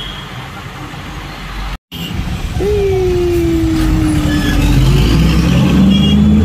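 Bus engine and road noise heard from inside a moving bus, with a brief dropout about two seconds in. A loud held tone follows and slowly falls in pitch for about two seconds. Near the end the engine's pitch rises as the bus accelerates.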